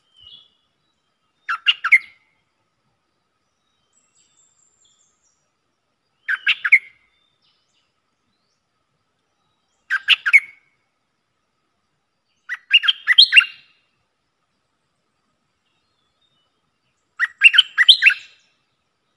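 A bulbul singing five short phrases of quick bubbly notes, each under a second long and spaced a few seconds apart, the last two a little longer.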